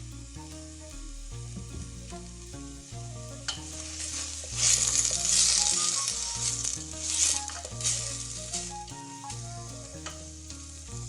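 Chopped onions frying in sunflower oil in a pan, sizzling while being stirred; the sizzle swells louder about four and a half seconds in and comes in surges.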